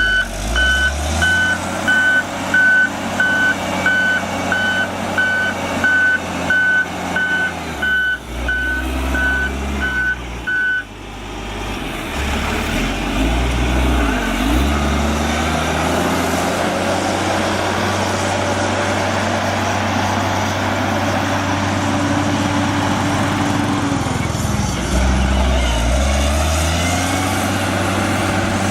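Diesel heavy construction machine running, with its reversing alarm beeping steadily about one and a half times a second. The beeping stops about eleven seconds in. The engine runs on with several rises and falls in pitch as the machine works.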